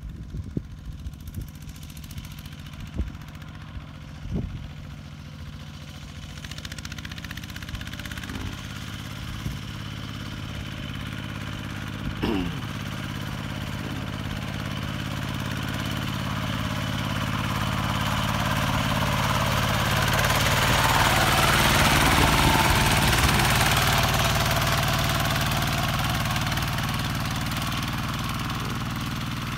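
Kubota RT120 single-cylinder diesel engine on a two-wheel walking tractor, running steadily as it pulls a harrow through the field. It grows louder as the tractor comes toward and passes close by, loudest about two-thirds of the way through.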